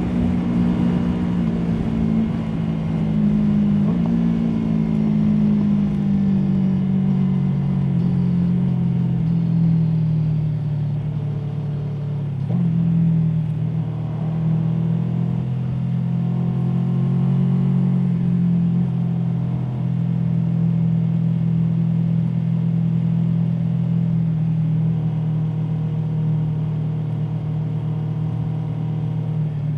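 Aprilia Tuono V4 motorcycle's V4 engine running under way, its pitch sinking slowly over the first dozen seconds, jumping up about twelve seconds in, then holding fairly steady.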